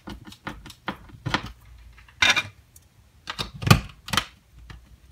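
Hand screwdriver driving screws into a plastic HDMI wall plate: a run of small clicks and scrapes, a few of them louder, as the plate is screwed down and pressed into place.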